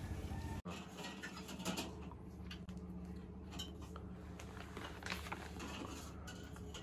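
Light clinks and clicks of small objects being handled, scattered and faint, over a steady low hum.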